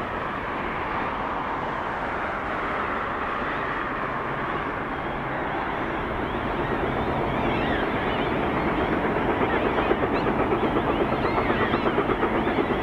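Distant steam locomotive CP 2816, a Hudson-type 4-6-4, working as it pulls a train away, heard over a steady outdoor rush. Its exhaust beats come up as a quick even pulse, about four a second, growing louder in the second half.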